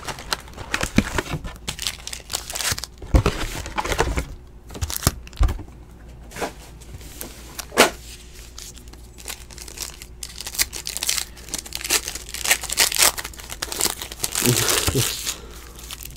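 Foil wrappers of 2017 Panini Playoff Football card packs crinkling and tearing as the packs are handled and ripped open, with irregular rustles and clicks and a few light knocks. The crinkling grows busier near the end.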